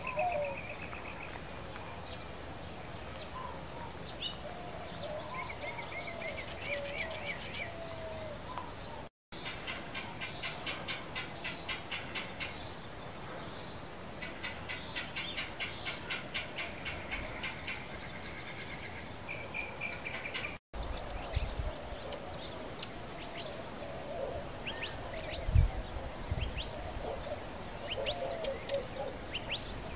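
Several birds calling outdoors: a steady repeated high chirp, fast trills and lower warbling calls, broken twice by brief silent gaps. A single low thump about three-quarters of the way through is the loudest sound.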